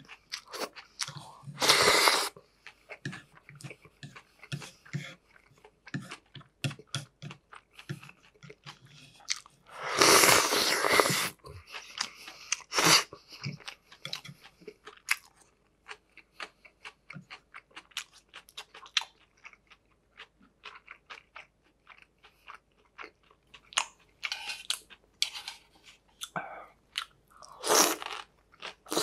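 Close-miked eating sounds: wet chewing of beef bulgogi with many small clicks, broken by a few louder bursts. Near the end, cold arrowroot naengmyeon noodles are slurped.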